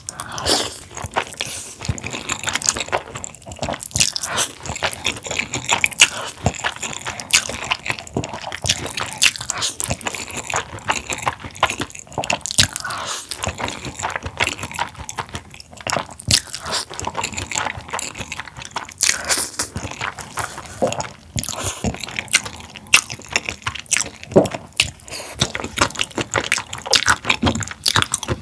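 Close-miked eating of spicy sauced somyeon noodles: slurping, chewing and wet mouth clicks and smacks throughout.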